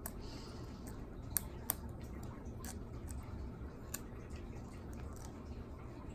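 A few small sharp clicks and taps as an eyeglass lens is handled and seated back into a frame held by a nylon cord, two close together about a second and a half in and another near four seconds, over a low steady room hum.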